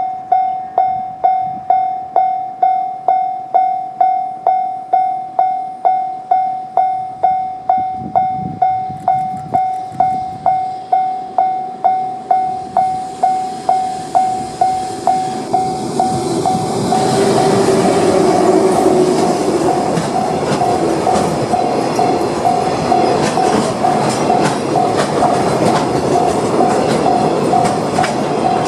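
Japanese level-crossing electronic alarm ringing 'kan-kan' a little under twice a second. From about halfway a freight train hauled by an EF510 electric locomotive comes up and then passes close by, its wheels clattering steadily over the rail joints while the alarm keeps ringing. A brief higher tone sounds just before the train arrives.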